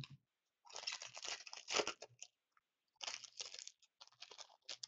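Trading cards being flipped through and slid against one another by hand, in two stretches of dry rustling and scraping.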